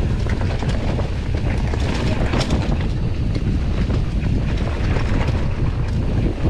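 Wind buffeting the microphone over the rumble of mountain bike tyres on a dirt trail, with frequent small rattles and knocks as the bike rolls over bumps.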